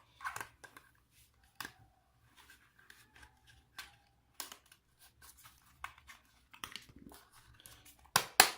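Scattered light clicks and rustles of a smartphone's cardboard box packaging being handled as the contents are taken out, with a quick run of louder clicks near the end.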